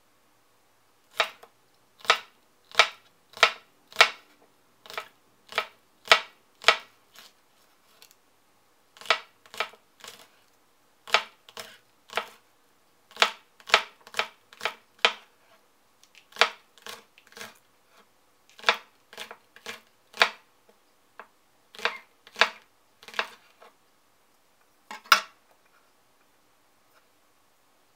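Kitchen knife slicing a Japanese leek against a cutting board: crisp chops of the blade on the board, about two a second, in runs with short pauses between them. One last knock comes near the end.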